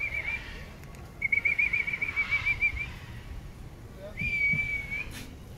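A whistle blown in short blasts: a warbling trill ending just after the start, a longer warbling trill about a second in, and a shorter steady note about four seconds in.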